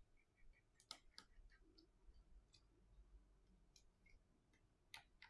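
Faint clicks and taps of metal tweezers working inside an opened iPhone 8, with a sharper click about a second in and another near the end.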